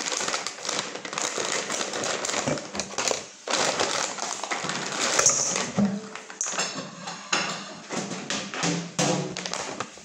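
Fish fillet pieces shaken out of a plastic bag into a stainless steel bowl: the bag crinkling and the pieces tapping against the metal, with many small clicks.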